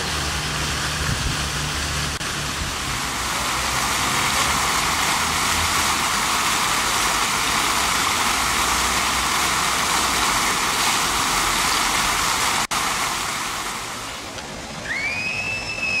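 Park fountain jets splashing steadily into their basin. Near the end the sound cuts to a quieter spill of water over a low cascade step, and a gull gives one arched call.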